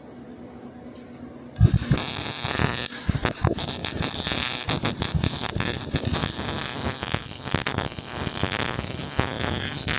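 Electric welding arc, sparked about one and a half seconds in, crackling and sputtering steadily as a bead is run on steel, then cut off at the end. The weld is running at a hotter setting on thicker steel.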